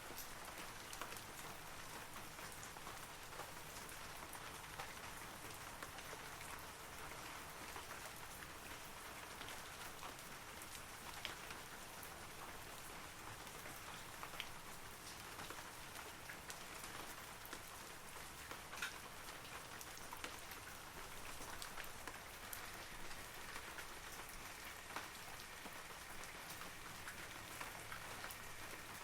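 Steady rain falling on forest trees, a constant hiss with many separate drops tapping close by.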